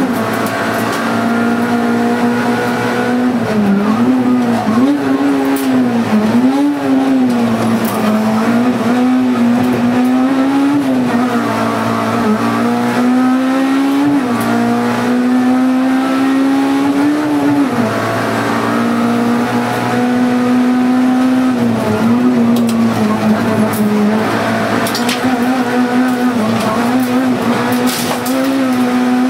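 Honda Civic Type R's 2.0-litre four-cylinder engine at high revs under hard throttle, heard from inside the cabin. The pitch holds high and dips briefly and climbs again many times through the run.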